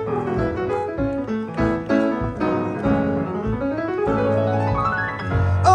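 Keyboard solo: quick runs of notes, then a fast rising run up the keyboard about three seconds in, with a low bass note coming in and held underneath near the end.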